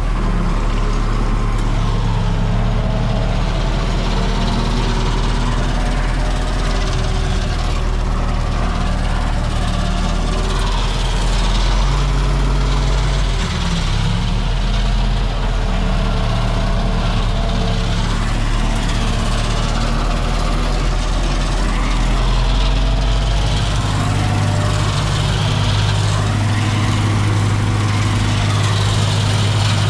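Belarus MTZ-82 tractor's four-cylinder diesel engine running steadily, heard from inside the cab. The engine note shifts about halfway through and again near the end.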